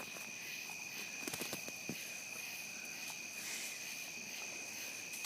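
Steady, high-pitched chorus of crickets chirring, with a few faint clicks about a second in.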